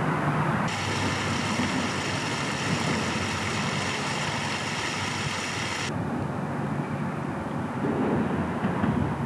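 Water gushing out of a drainage outfall pipe and splashing into a shallow creek, a steady rush that cuts in about a second in and stops abruptly about six seconds in. Under it runs a steady low background rumble.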